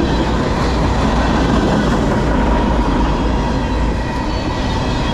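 Freight cars of a long CSX manifest train, mostly empty centerbeam flatcars, rolling past at speed: a steady loud noise of steel wheels on rail, with a thin steady whine running through it.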